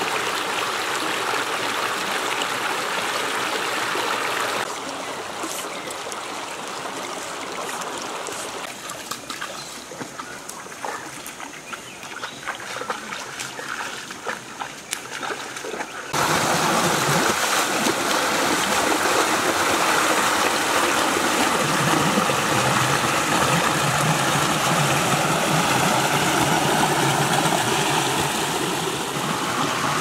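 Stream water rushing over rocks, a steady rush that steps abruptly in level: quieter for a stretch in the middle with irregular splashes, then louder and fuller from just past halfway on.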